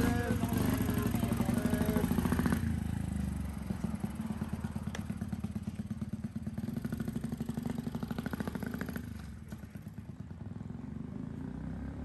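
Motorcycle engine running with a rapid, even exhaust beat as the bike rides off, growing fainter as it moves away. Voices are briefly heard over it at the start.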